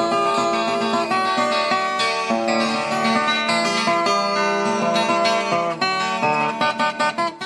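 Viola caipira, the Brazilian ten-string guitar, playing a quick instrumental moda de viola with fast plucked notes. Near the end the notes thin to a few separate plucks and the music cuts off suddenly.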